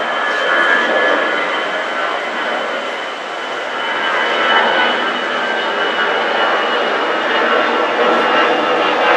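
Jet engines of an Airbus A320-family airliner climbing out after takeoff: a steady rush of engine noise with a thin high whine running through it.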